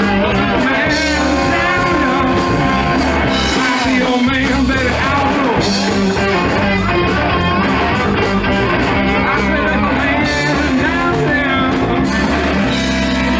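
Live rock band playing: a man singing over electric guitar and drums.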